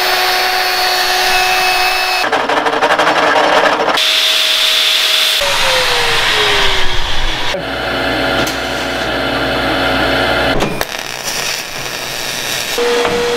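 A string of short metal-shop tool sounds cut one after another: a DeWalt portable band saw running at the start, a power tool whose motor winds down in pitch partway through, and the crackle of MIG welding near the end.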